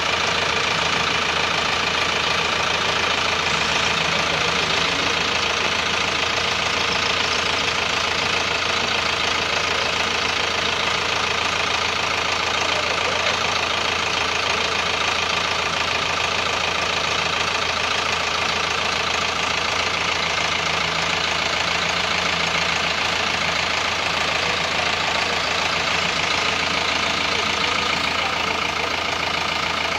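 YTO 800 tractor's diesel engine running steadily while its hydraulics tip a loaded trailer.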